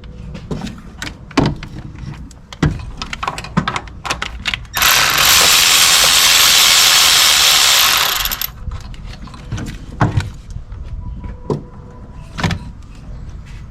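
Ratchet and wrench work on the diverter valve's bolts: rapid clicking and metal knocks. From about five seconds in, a loud steady hiss runs for about three and a half seconds and then stops, followed by more scattered clicks and knocks.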